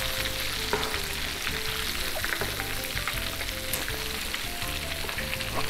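Battered chicken pieces deep-frying in vegetable oil heated to 360°F in an electric frying pan: a steady sizzle with many small crackles and pops.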